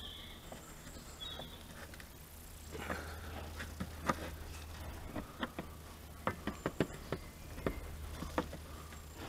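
A small screwdriver prises at the plastic windscreen washer jets in a Nissan Note's scuttle panel. Scattered scrapes and a run of short, sharp plastic clicks come through the second half, thickest a few seconds before the end, over a steady low hum.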